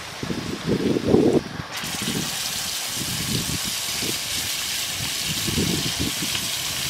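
Skewered, masala-coated prawns deep-frying in hot oil in an iron wok. The sizzle starts suddenly a little under two seconds in, as they go into the oil, and carries on as a steady hiss. Irregular low rumbles sound underneath.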